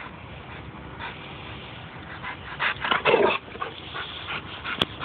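A dog making short, uneven vocal sounds, with the loudest cluster about three seconds in and a few smaller ones after it.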